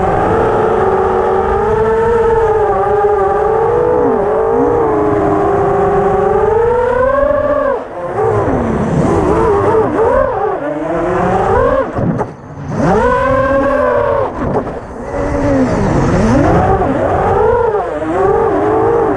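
Brushless motors and propellers of a six-inch FPV racing quadcopter heard from its onboard camera, a whine that rises and falls in pitch constantly with the throttle. It drops away briefly a few times in the second half as the throttle is chopped, then comes back.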